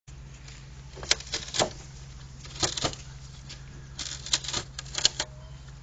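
Donkey biting and gnawing a wooden fence rail: sharp cracking clicks of teeth on the wood, coming in short clusters several times.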